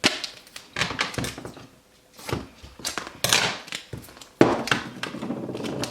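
Duct tape being pulled off the roll in several ripping pulls as it is wrapped around a stiff paper box lid, with the longest pull near the end.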